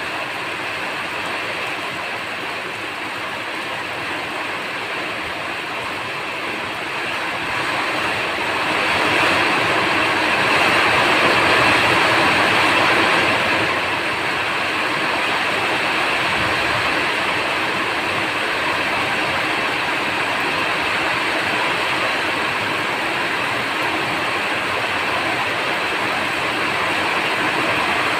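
Steady rain falling, swelling heavier about eight seconds in and easing back a little about six seconds later.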